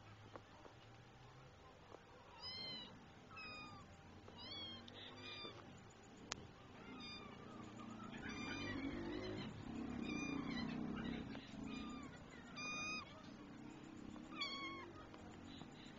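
Young cat meowing repeatedly: about ten short, high-pitched meows at irregular gaps of a second or so, with a louder low-pitched noise under them around the middle.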